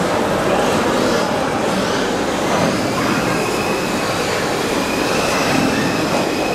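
Steady din of a crowded exhibition hall, with a faint high whine coming in about halfway through.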